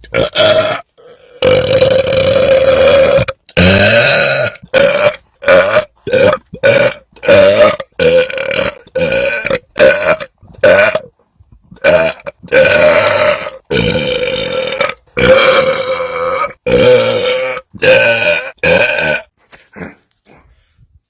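A man belching over and over, about two dozen belches in a row with short gaps between: a few drawn out for a second or two, most short and clipped. They stop shortly before the end.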